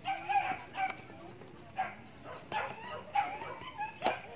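A dog barking in short, repeated yaps, with a sharp knock near the end.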